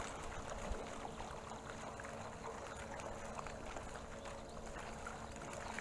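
Steady waterside background: water moving against the wharf and wind noise, with a faint steady hum underneath and a few small ticks.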